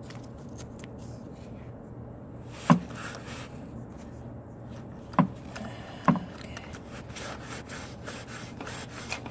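Socket ratchet and extension knocking against the engine while a spark plug is worked on: three sharp metallic knocks a couple of seconds apart, then faint rapid ticking.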